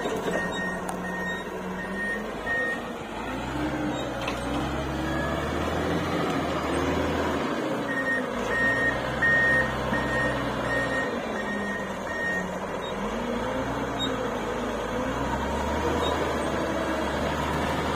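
Komatsu GD535 motor grader's diesel engine running and revving up and down as it maneuvers back and forth. Its reversing alarm beeps for the first few seconds and again in a spell around the middle.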